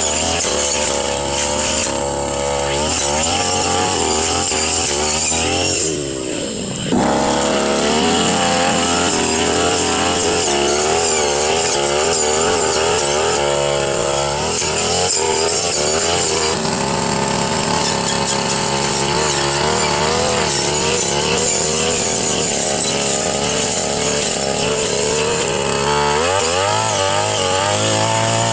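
Brush cutter engine running hard, its pitch wavering up and down as the blade cuts through grass and undergrowth. About six seconds in the throttle drops briefly and then opens again; near the end the engine revs up.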